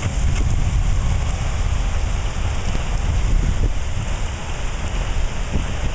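Storm wind and rain from a nearby tornado, a steady loud hiss, with gusts buffeting the microphone in a deep, churning rumble.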